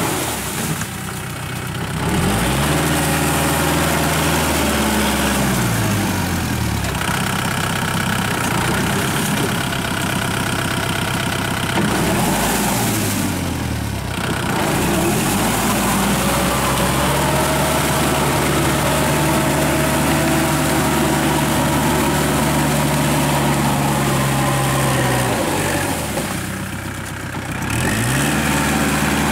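Kubota L5018 tractor's diesel engine running under load as it drives a rotary tiller through a flooded paddy field. The engine speed drops and picks back up several times.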